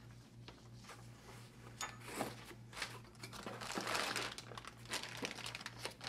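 Packaging crinkling and rustling, with scattered light clicks and knocks, as a set of hydraulic crimper dies is taken out.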